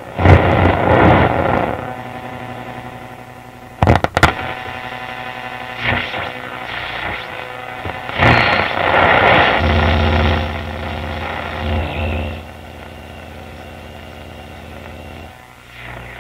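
Canadian General Electric C701 console radio playing through its speaker while being tuned between stations: bursts of static hiss, a couple of sharp clicks about four seconds in, and a steady buzzing hum for several seconds in the second half.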